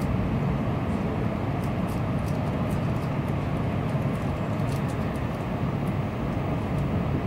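Tokaido Shinkansen passenger car running at speed, heard from inside the cabin: a steady low rumble with a few faint clicks.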